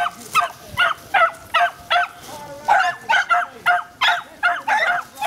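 Beagle puppy baying into a hole at something gone to ground: a steady run of short, high, yelping barks, about two to three a second, with a brief pause about halfway through.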